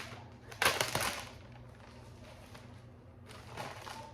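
Packaging being handled and opened: a loud rustle or rip about half a second in, lasting about half a second, and softer rustling a little over three seconds in, over a low steady hum.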